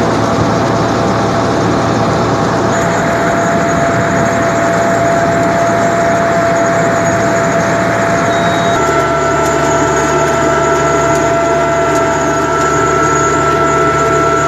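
Tractor engine running steadily under load while pulling a precision planter, with a steady high whine over the engine noise. About nine seconds in, the engine note changes and a second, higher whine grows stronger.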